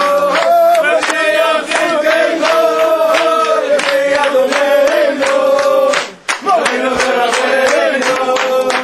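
A group of Hasidic men singing a melody loudly together, with hand clapping keeping the beat. The singing breaks off briefly about six seconds in, then resumes.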